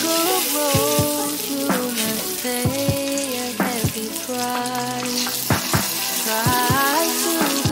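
Butter sizzling in a frying pan as seaweed-wrapped parcels fry in it, a steady crackling hiss, with background music playing over it.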